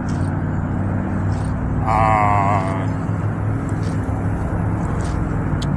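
Steady low hum of a car engine running, with one short wavering pitched sound about two seconds in.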